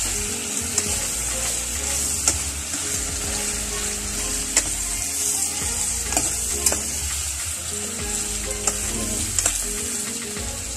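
Chicken and cubed chayote sizzling as they sauté in a pan, with a steady frying hiss. A metal ladle stirs and clinks against the pan now and then.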